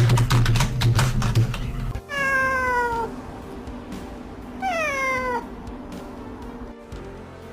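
A cat meowing twice, each meow about a second long and falling in pitch, the second coming about two and a half seconds after the first. Loud music with a beat plays for the first two seconds.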